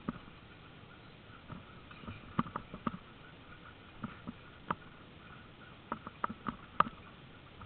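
Sled-dog team pulling a training rig along a grassy trail: irregular sharp clicks and knocks, some in quick clusters, as the rig and gangline rattle over the uneven ground.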